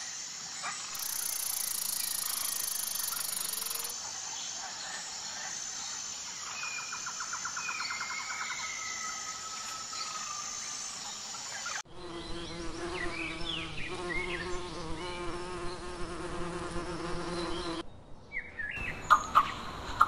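Woodland ambience of insects droning and trilling steadily, with short bird chirps and trills over it. About twelve seconds in the background cuts to a different steady lower drone with more chirps, then drops out briefly near the end.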